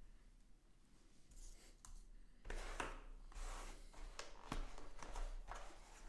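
Quiet at first, then about two and a half seconds in, hands start rustling and scraping against a white cardboard packaging insert, with a few sharp clicks, while the headphones are worked out of their tray.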